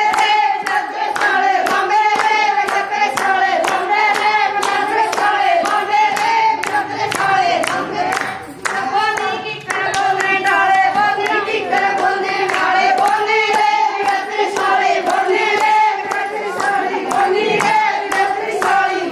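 Group of women singing a Haryanvi folk song together while clapping their hands to a steady, even beat. The singing carries on throughout, with a brief drop in the voices about eight seconds in.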